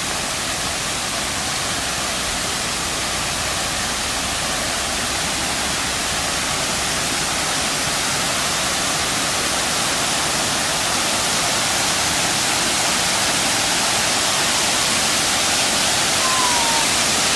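Waterfall on a creek: a steady rush of falling water that grows slowly louder.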